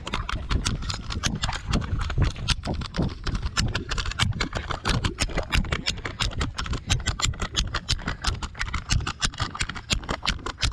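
Rapid, irregular knocking: sharp taps about five or six a second.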